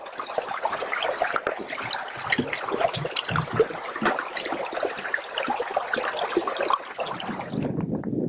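Small fell stream babbling and trickling over stones: a busy, even splashing full of small plops. About seven and a half seconds in it cuts off abruptly, and a lower, duller rushing noise takes over.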